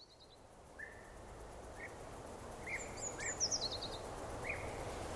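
Birds chirping outdoors: several short chirps and a high, falling trill heard twice, over a steady background hiss that fades in.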